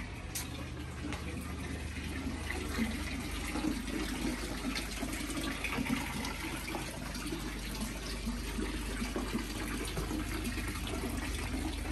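Water trickling from a small wall spout into a stone basin and running along a stone channel, a steady splashing.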